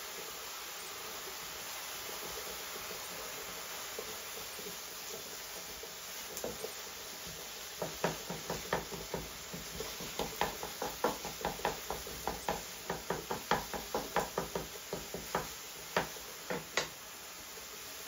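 Slotted wooden spatula knocking and scraping against a coated frying pan as browning minced meat and tomato paste are stirred and broken up. The quick taps come about three a second through the second half, over a low steady hiss.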